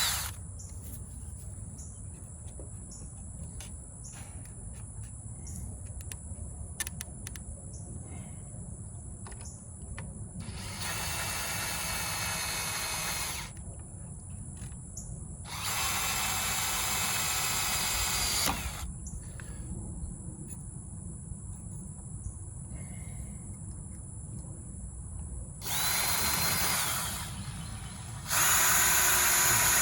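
Power drill driving screws into wood in four separate runs of a few seconds each, with small knocks and clicks of handling between them.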